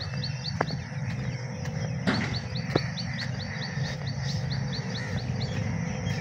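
A small bird calling a fast, even series of high chirps, about five a second, with a pause about four seconds in, over a steady low rumble. Two sharp ticks stand out, one near the start and one about three seconds in.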